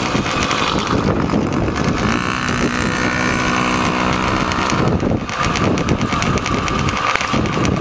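Small two-stroke mini motocross bike engines running, a KTM 50 ticking over under its rider while another mini bike pulls away. A steadier, clearer engine note stands out for about three seconds in the middle.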